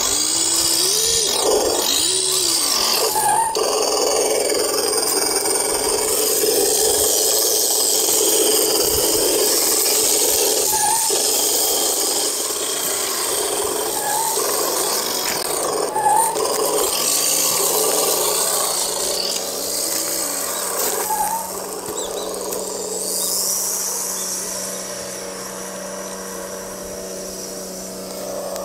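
Electric motor and gearbox of an HG P402 radio-controlled crawler truck whining, rising and falling in pitch as the throttle is worked. It grows fainter over the last several seconds as the truck drives away.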